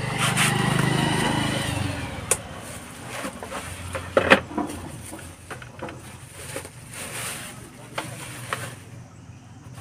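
Plastic wrapping rustling and crinkling as an electronic weighing scale is pulled out of its bag and cardboard box, with several sharp knocks of handling, the loudest a little over four seconds in. A low engine hum sounds over the first couple of seconds.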